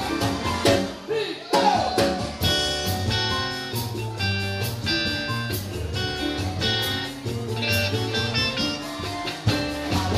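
Live band music: electric guitar over keyboard chords and a drum kit, with a short break in the sound about a second in.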